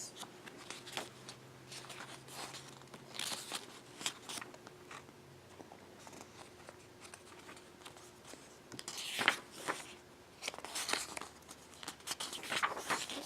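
Pages of a K-pop album photobook being turned and handled: soft paper rustles and swishes with light taps, loudest about nine seconds in.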